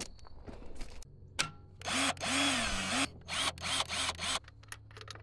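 Hart cordless drill's motor run up on the trigger for about a second, its pitch rising and then falling, followed by a few short trigger blips, spinning a gear fitted in its chuck.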